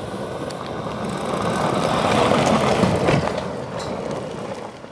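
Jeep Grand Cherokee driving down a dirt track and passing close by, its engine and tyres on loose dirt and gravel. The sound grows louder to a peak a little past halfway, with a few sharp clicks, then fades as it drives away.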